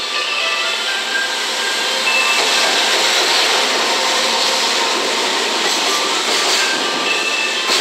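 JR Freight EF210 electric locomotive and its container wagons passing: a steady rush of wheels on rail that swells about two seconds in as the locomotive draws level, with faint high tones over it.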